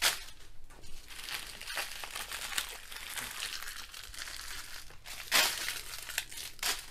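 Small plastic bags of square diamond-painting drills rustling and sliding as a hand sweeps them across a table and off its edge, with louder rustles at the start and about five seconds in.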